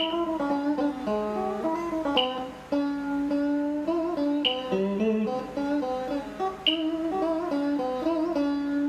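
Electric guitar playing a slow single-note melody with wavering, bent held notes. A short sharp click recurs about every two seconds, keeping time.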